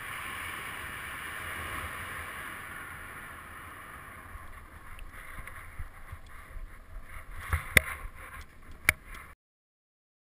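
Airflow rushing over the camera microphone in paraglider flight, easing off through the middle seconds. A few sharp knocks and rustles follow near the end, then the sound cuts off abruptly.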